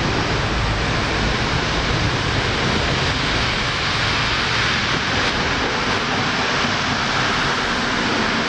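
NS Mat '64 electric multiple unit approaching and running past along the platform: a steady rolling rumble and hiss of the train on the rails, the higher part of the noise growing as it draws level.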